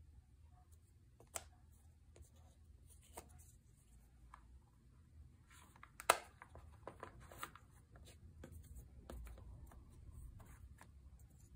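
Die-cut cardboard tiles being punched out of board-game punchboard sheets: a string of sharp snaps and pops as pieces break free, the loudest about six seconds in, with the scrape and rustle of the cardboard sheets being handled.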